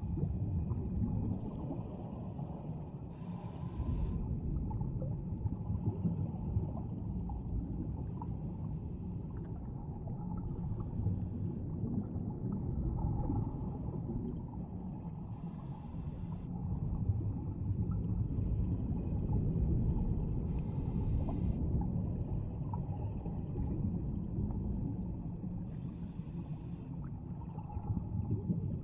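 Scuba diver breathing through a regulator underwater: a bubbling hiss of exhaled bubbles about every five seconds over a steady low rumble.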